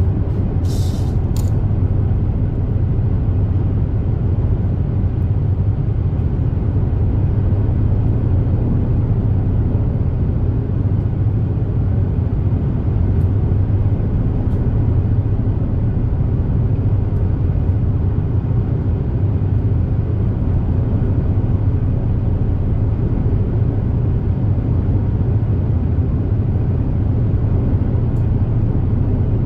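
High-speed passenger ferry underway, heard from inside the cabin: a steady, heavy low rumble of engines and hull. A few brief high-pitched ticks sound about a second in.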